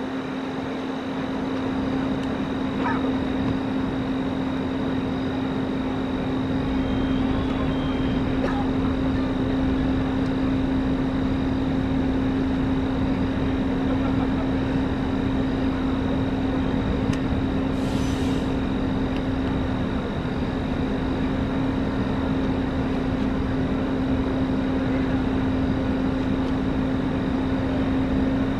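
A vehicle engine running steadily with a constant droning hum; a broad low rumble builds over the first few seconds and then holds. A short hiss sounds about two-thirds of the way through.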